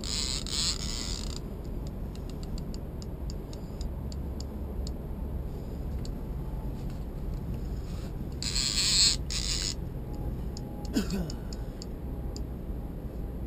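A fishing reel's drag buzzing in two bursts, each a second or more long, as a hooked white sturgeon pulls line off against it, with scattered reel ticks between them. A steady low rumble lies under it, and a brief falling squeak comes near the end.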